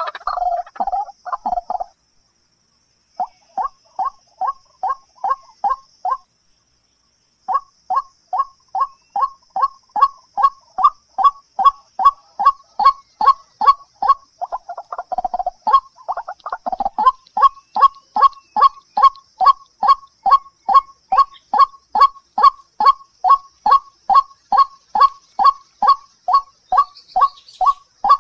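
A bird calling in a fast, even series of short, sharp notes, about three a second. The series breaks off twice in the first seven seconds, and a longer, lower call overlaps it about halfway through.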